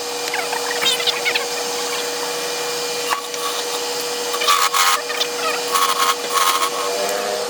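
Wood lathe running with a steady hum while a turning tool cuts the spinning wood, with several louder cutting passes in the middle.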